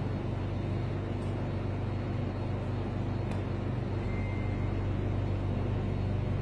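A steady low machine hum, like a motor or fan running, with a brief faint high tone about four seconds in.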